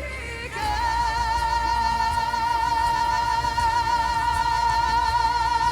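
A singer holds one long, high note with steady vibrato over a backing track, the sustained climax of a song.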